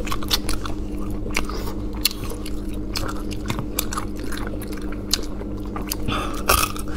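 Close-miked eating of spicy marinated sea snails: chewing and sucking the meat from the shells, with many short wet mouth clicks, over a steady low hum.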